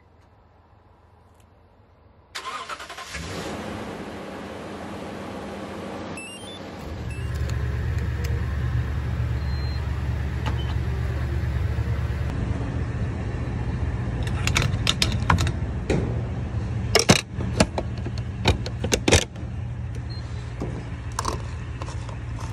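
A vehicle engine starting a couple of seconds in and running, then a steady low hum. A run of sharp clicks and knocks comes near the end.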